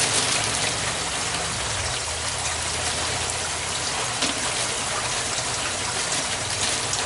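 Water running steadily in an aquaponics system, a constant splashing rush, with faint scattered clicks of grow-bed rocks being moved by hand.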